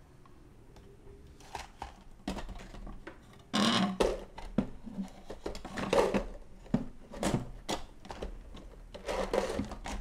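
Handling noises at a desk as a table lamp is grabbed, shifted and set down: scattered knocks and clicks with a few short scraping, rubbing bursts.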